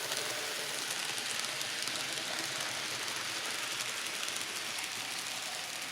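Steady hiss with no distinct events.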